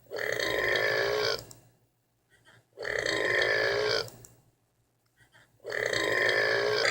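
A person burping three long, pitched belches, each lasting about a second and a half, with short pauses between them; the third begins near the end and carries on.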